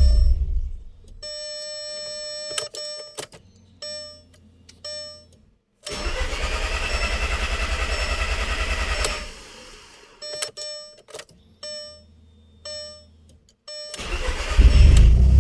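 Audi TT being cranked: the starter turns the engine over in a rapid pulsing for about three seconds without it catching, and a second crank begins near the end. Between attempts the dashboard sounds several short electronic warning chimes.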